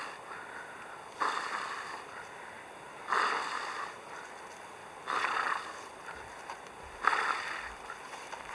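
Wild boar snorting: four breathy snorts about two seconds apart, each starting sharply and fading.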